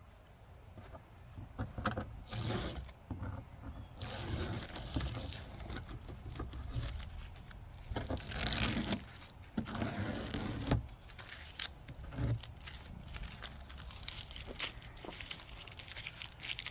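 Tape being peeled off a surface in a series of irregular stretches, with scattered small knocks and clicks in between.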